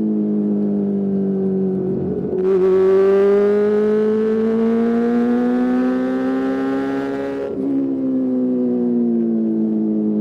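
Kawasaki ZX-25RR's 250 cc inline-four running through a DX Generation Pro Race aftermarket exhaust at raised revs. About two seconds in the throttle opens further and the pitch climbs slowly for about five seconds, then drops back as the throttle is eased.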